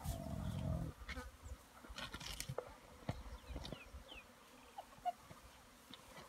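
A spotted hyena growling low for about the first second, then flies buzzing over a giraffe carcass, with scattered sharp clicks from the hyenas feeding.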